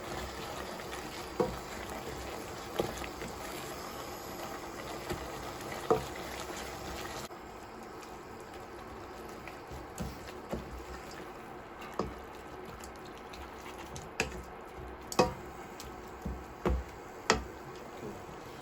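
Creamy mushroom and spinach sauce simmering in a pan as it thickens with cornflour, stirred with a spoon that knocks against the pan every second or two. The steady simmering background drops quieter about seven seconds in.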